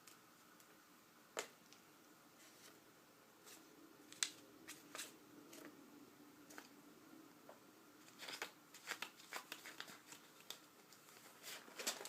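Faint, scattered light taps and scuffs of a kitten batting and pouncing on a hair tie, coming quicker and closer together in the last few seconds.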